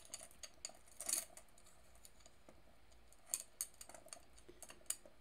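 Small metal charms clicking and clinking as they are sorted by hand: light, irregular ticks, bunched about a second in and again around three and a half seconds.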